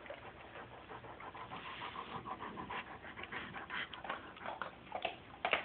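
Wolf puppy panting in quick, short breaths close to the microphone, with one louder puff near the end.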